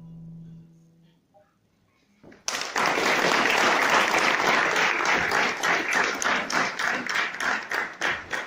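A classical guitar's last note rings out and fades, then after about two seconds of quiet an audience starts applauding. The applause thins into separate claps near the end.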